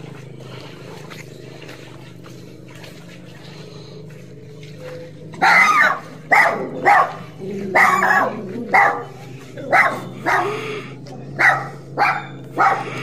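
A dog barking repeatedly: about a dozen loud, short barks, one every half second or so, starting about five seconds in, over a steady low background hum.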